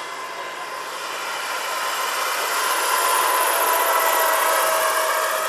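Turbine-powered RC scale Boeing Vertol CH-46 tandem-rotor helicopter flying past: a steady turbine whine over rotor rush that grows louder as the model comes close, loudest around three to four seconds in, then eases off a little.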